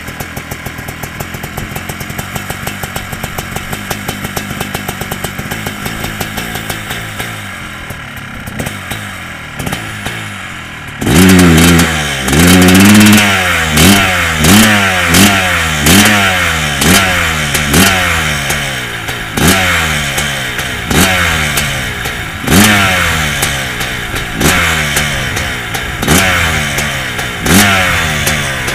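Kawasaki KX500 single-cylinder two-stroke dirt-bike engine with an FMF exhaust, freshly rebuilt. It idles with a steady beat for about eleven seconds, then is suddenly revved in sharp throttle blips, each rising and falling in pitch, about one a second and spacing out toward the end.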